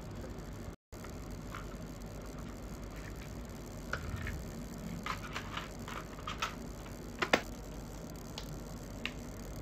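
Plastic clicks and clatter of a portable cassette player being handled, its cassette door opened and a tape loaded, starting about four seconds in over a steady low hum. A sharp double snap comes about seven seconds in, followed by a couple of light laptop key taps.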